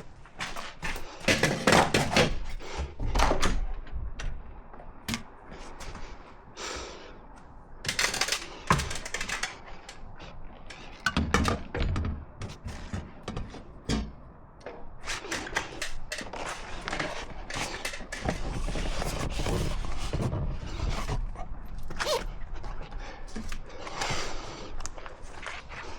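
Irregular knocks, clunks and scrapes of tools and building materials being handled during boiler flue installation work, with a steadier low rumble for a few seconds past the middle.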